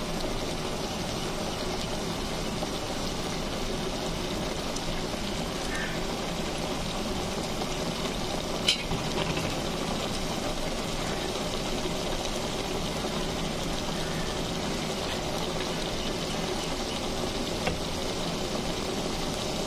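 Taro and spice paste sizzling steadily in oil in an aluminium pot on a gas stove, at the sautéing stage before water goes in. A sharp click about nine seconds in and a fainter one near the end.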